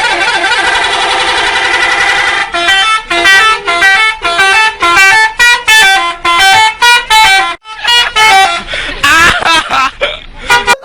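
Indonesian bus 'telolet' horn, a multi-tone musical horn, playing fast melodic runs of stepped notes in repeated blasts. Voices shout near the end.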